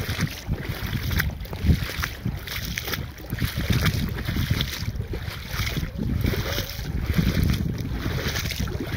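Wind buffeting the microphone, with shallow water splashing and sloshing around the feet of someone wading in ankle-deep water.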